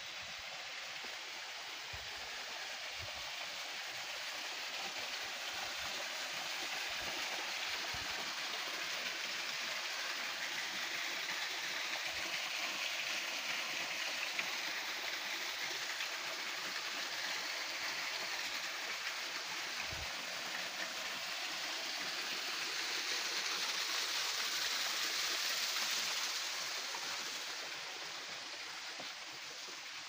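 A small forest stream splashing over rocks and a little waterfall, with a steady rush of water. It swells slowly, is loudest a few seconds before the end, then eases off.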